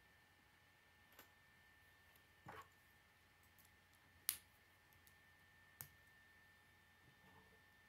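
K'nex plastic rods and connectors being snapped together by hand: a handful of short, sharp clicks spread through otherwise quiet, the loudest about four seconds in.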